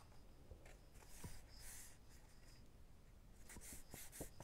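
Faint rustling and rubbing of paper being handled: a glued patterned paper strip positioned and pressed onto card stock, with a couple of soft scrapes and small taps.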